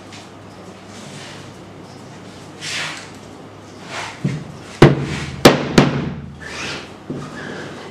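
A screen-printing frame being handled on a fabric-covered table: soft rustling and shuffling, then three or four sharp knocks in quick succession about five seconds in.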